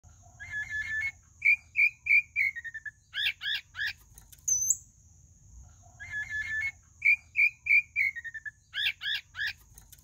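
Pale-breasted thrush (sabiá-barranco) singing the same phrase twice. Each phrase opens with a quick stutter of notes, runs into a series of slurred whistles that fall in pitch, and ends with three loud, steeply swooping notes.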